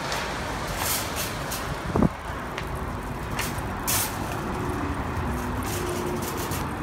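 Wire shopping cart rolling and rattling over pavement, with a sharp clunk about two seconds in and scattered clicks, over a steady wash of outdoor traffic noise.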